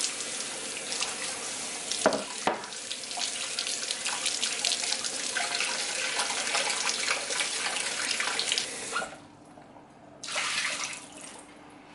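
Kitchen faucet running onto charred onion and ginger as they are rubbed and rinsed by hand over a ceramic bowl, washing off the burnt skin, with a couple of knocks about two seconds in. The tap is shut off about nine seconds in, followed a second later by a short burst of splashing water.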